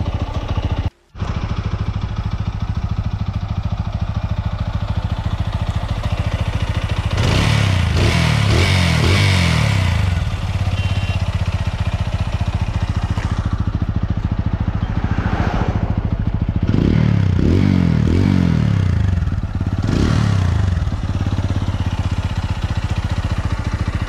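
TVS Apache RTR 200 4V's single-cylinder engine, fully warmed up, idling through an aftermarket Akrapovic-branded silencer. The throttle is blipped in a few quick revs about a third of the way in and in several more in the second half, and the sound cuts out briefly about a second in. The owner presents this as the normal sound of a hot Apache engine, nothing to worry about.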